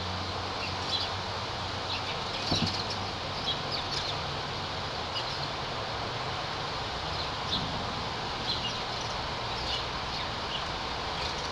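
Small birds chirping faintly and intermittently over a steady outdoor background hiss.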